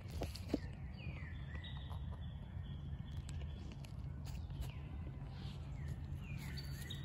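Bird calling three times with short falling whistles, over a low steady rumble and light crunching of dry bamboo leaves underfoot.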